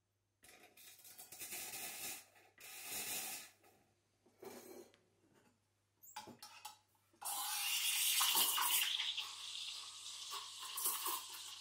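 Gaggia Classic Pro steam wand purged in a few short hissing blasts of steam, then, from about seven seconds in, a louder steady hiss as the wand steams milk for a flat white.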